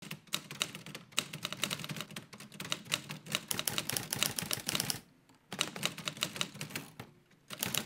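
Typewriter being typed on quickly: a fast, uneven run of sharp key and typebar strikes, with two short pauses, about five seconds in and again about seven seconds in.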